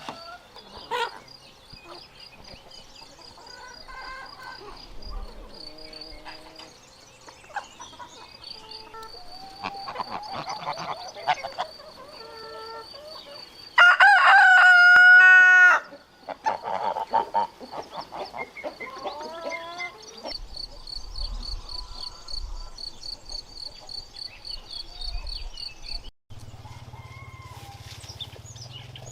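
A rooster crows once, a loud call of about two seconds about halfway through, with shorter clucking calls before and after it.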